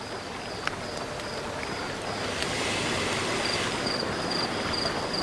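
Crickets chirping in an even pulse, about three chirps a second, over a soft steady hiss of night ambience.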